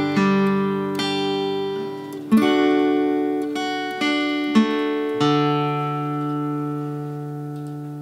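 Fender Hellcat six-string acoustic guitar picked, close-miked at the sound hole: a few plucked notes and chords, then a last chord struck about five seconds in that rings and slowly fades.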